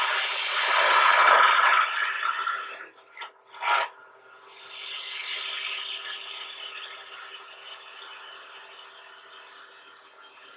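Skew chisel cutting a spinning wooden spindle on a lathe: a rough, hissing cut for nearly three seconds, a brief break with two short scrapes, then a second, softer cut that fades away. The lathe hums steadily underneath.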